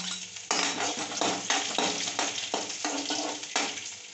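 Crushed garlic frying in hot oil in an aluminium kadai, stirred with a spoon that scrapes against the pan in quick irregular strokes over the sizzle, then dying down near the end.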